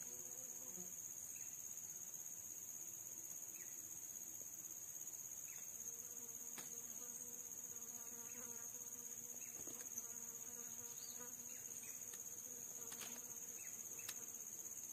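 Steady, high-pitched drone of forest insects in two unbroken bands, with short, high falling chirps dotted through it.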